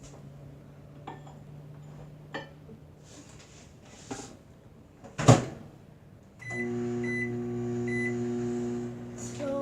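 Microwave oven: a few light clicks, a loud clack about five seconds in, then the oven starts up with a steady electrical hum. It is running and heating a batch of homemade slime.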